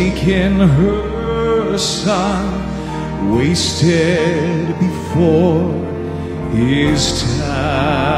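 A man singing the lead line of a slow Southern gospel song into a handheld microphone, with vibrato on the held notes, over a sustained instrumental accompaniment.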